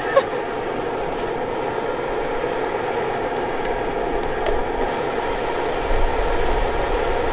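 Camping gas burner running under a griddle pan with a steady rushing noise. A few faint clicks and taps come from the cooking as meat is tipped onto the bean sprouts and spread with tongs.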